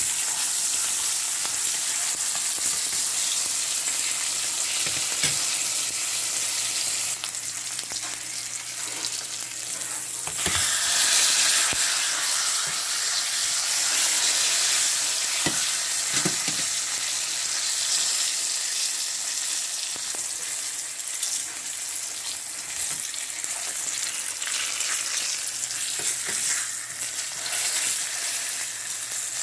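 Split dried salted fish frying in shallow oil in a non-stick pan: steady sizzling and spitting, swelling louder about ten seconds in. A few light knocks come from tongs on the pan as the fish are turned.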